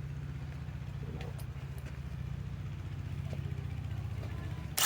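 A nearby engine idling with a steady low throb, and one loud sharp knock or clatter just before the end.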